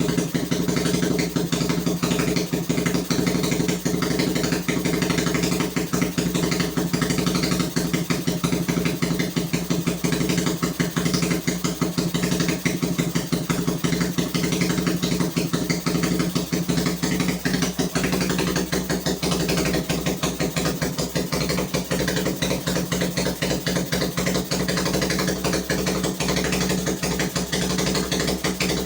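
Suzuki Thunder 125cc single-cylinder four-stroke engine in a custom chopper motorcycle, idling steadily at an even pitch just after being started.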